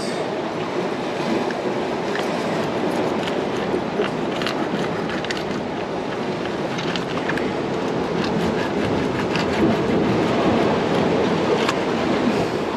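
Ocean surf washing steadily, with scattered light clicks and scrapes over it.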